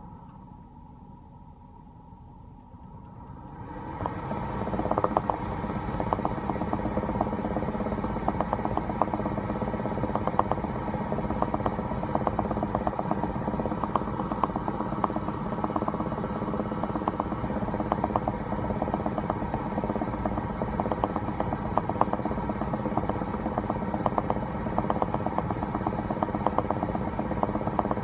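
2016 BMW X5 F15 driving noise, a steady drone that gets louder about four seconds in, with rapid, irregular popping clicks over it: the bubbling/popping noise under investigation.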